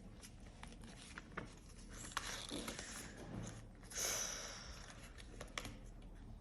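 A sheet of paper rustling and crinkling as it is handled and folded by hand, with small clicks and taps and a louder rustle about four seconds in.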